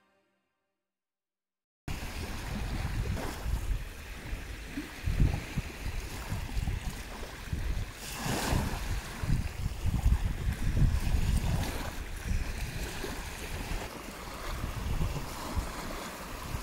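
Wind buffeting the microphone in gusts over the wash of small waves breaking on a sandy beach. It cuts in abruptly about two seconds in, after music fades out and a brief silence.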